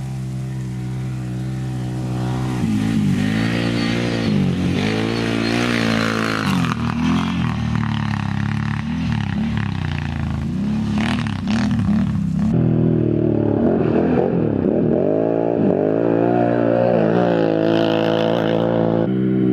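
Can-Am Renegade 1000 rally quad's V-twin engine revving up and down hard, its pitch rising and falling again and again as it rides over rough sandy ground. After a cut about twelve seconds in, a quad engine goes on revving in the same way.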